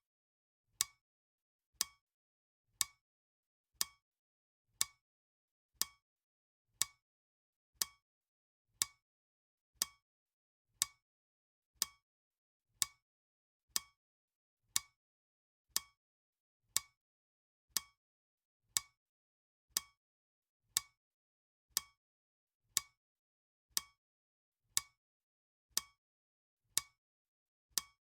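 Timer's clock ticking sound: sharp, even ticks about once a second, with silence between them.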